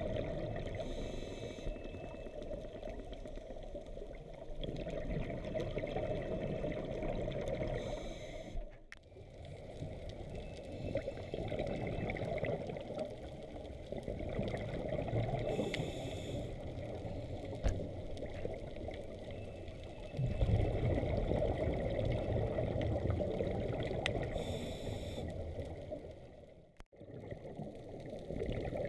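Underwater water noise with a scuba diver's breathing through the regulator: a short hiss comes round about every seven or eight seconds, with a heavier rush of exhaled bubbles about two-thirds of the way through. The sound drops out briefly twice.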